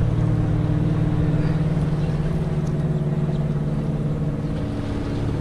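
A motor engine runs steadily with a low, even hum, of the kind a motorboat engine makes.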